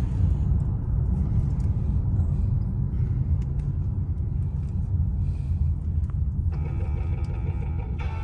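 Steady low road and engine rumble inside the cabin of a car at highway speed. Music comes in faintly about six and a half seconds in.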